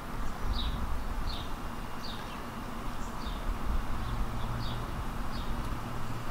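A bird chirping over and over, short falling chirps about once a second, over a steady low rumble.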